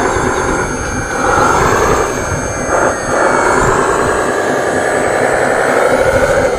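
Small electric motor and gears of a radio-controlled model dump truck whining, the pitch gliding up and down with a dip in the middle.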